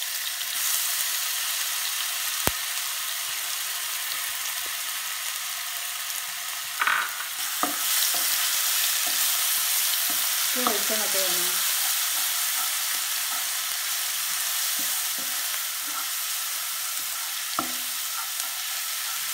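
Ginger, garlic and green chilli paste sizzling in hot coconut oil with curry leaves in a non-stick frying pan, with a steady hiss throughout. It is stirred with a spatula that knocks against the pan a few times.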